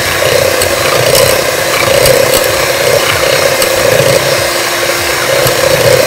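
Electric hand mixer running at a steady speed, its beaters beating butter in a stainless steel bowl, with scattered ticks as the beaters touch the bowl.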